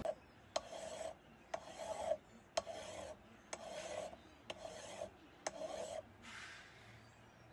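Hand file drawn across the cast metal brush-holder housing of an antique bipolar dynamo held in a vise: about seven separate rasping strokes, roughly one a second, the last one fainter. Metal is being taken off the housing's face to even out its spacing to the commutator.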